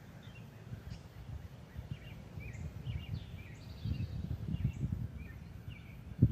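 Small songbirds chirping over and over, short high chirps every half second or so, over a low, uneven rumble that swells about four seconds in. There is a single dull thump at the very end.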